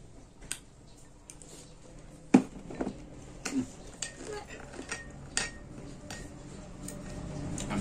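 Metal spoon clinking against a glass bowl, with close-up chewing of wild olives in between. The clicks are scattered, and the sharpest one comes about two and a half seconds in.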